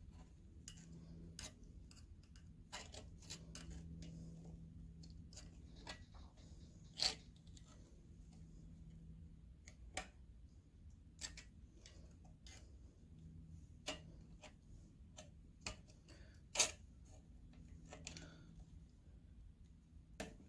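Scattered sharp clicks and short scrapes of a hand tool picking at the old wet-sleeve o-ring inside the cast-iron cylinder of a McCormick Deering type M engine, over a faint low steady hum. The two loudest clicks come about seven and about sixteen and a half seconds in.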